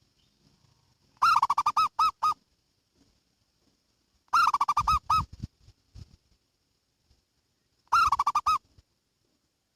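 Zebra dove (perkutut) cooing: three phrases of its quick, rolling, pulsed song, each lasting about a second.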